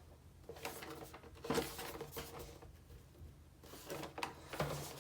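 Faint, scattered knocks and rustles of a boxed action figure's packaging being handled.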